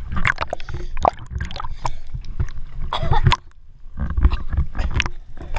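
Sea water splashing and sloshing against a waterproof action camera held at the surface: irregular slaps of water over a low rumble, going briefly quieter about three and a half seconds in.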